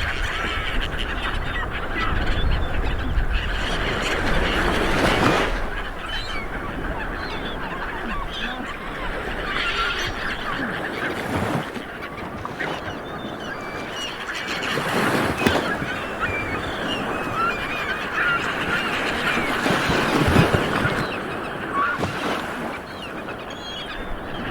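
Light surf washing onto a beach, swelling and ebbing about every five seconds, with many birds calling over it in short honking cries.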